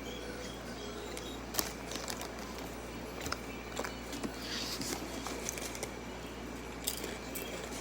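Faint handling noises: scattered light clicks and a brief soft rustle about halfway through, over a steady low hum.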